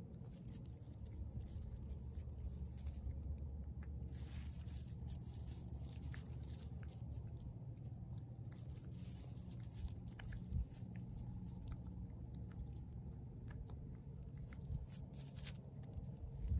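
A tabby cat chewing and biting into a raw fish, with irregular small crunching clicks throughout.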